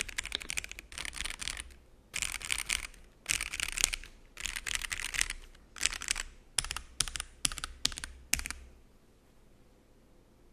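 Typing on a gasket-mount GAS67 mechanical keyboard fitted with Akko Starfish switches: bursts of fast keystrokes separated by short pauses, stopping about eight seconds in.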